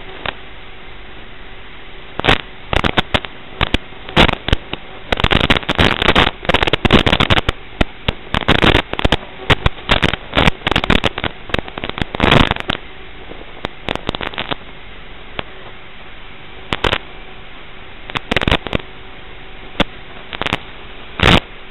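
Static hiss from an analog FPV video link's audio channel with a faint steady hum, broken by many sudden crackles and bursts of interference. The bursts come thick through the first half and then only now and then.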